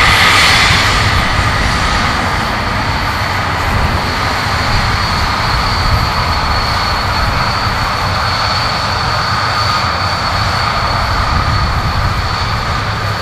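Avro RJ85's four Honeywell LF507 turbofans running at taxi power as the airliner turns onto the runway: a steady jet whine of two high tones over a low rumble, a little louder in the first couple of seconds and then even.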